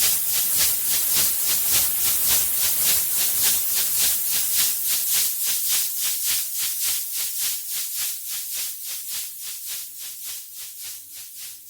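Electronic glitch noise music: an even, rapid pulse of hissing noise, about three beats a second, like a shaker. It fades steadily over the second half while a faint low hum shows through.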